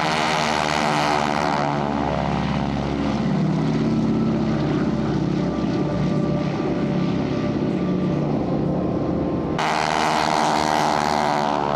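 Propeller warbirds, North American Harvard trainers, passing low at full power with the loud engine-and-propeller note sliding down in pitch as they go by. A second loud pass comes near the end. Their propeller tips reach supersonic speed, which gives the Harvard its unique sound.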